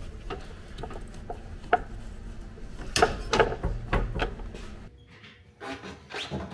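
Scattered clinks and knocks of hand tools and metal or plastic parts being handled while the Jeep's front end is taken apart, over a low steady hum that cuts off about five seconds in.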